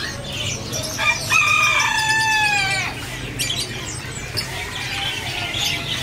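A rooster crowing once, a single call of about two seconds that dips in pitch at the end, over the chirping of many caged birds.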